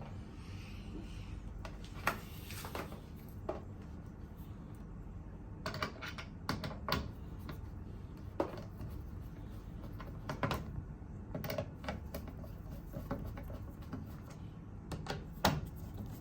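Scattered small clicks and light knocks of screws and hard plastic parts being handled and screwed back into a top-load washing machine, at irregular intervals over a faint steady hum.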